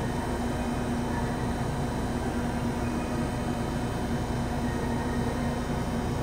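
Steady hum and whir of a subway train standing at the platform, its onboard equipment and fans running, with a constant low-pitched tone under it.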